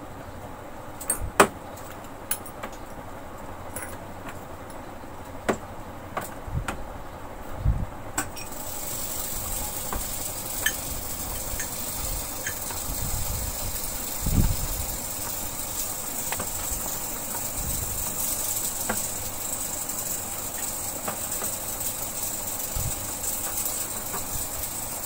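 Scattered light clicks, taps and a few dull thumps of hands handling a plastic air cooler's louvre shutter. About a third of the way in a steady hiss sets in and runs on, cutting off suddenly at the end.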